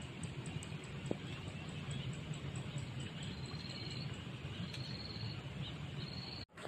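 Outdoor evening ambience: high insect trills that start and stop three times, and a rapid faint ticking, over a steady low rumble. The sound cuts out briefly near the end.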